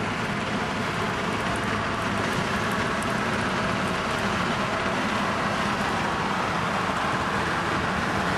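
1964 Mercury Comet Cyclone driving: steady engine and road noise.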